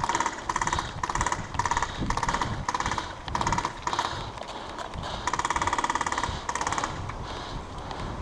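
Airsoft guns firing repeated short full-auto bursts of rapid clicks, most about half a second long, with one longer burst of about a second and a half midway.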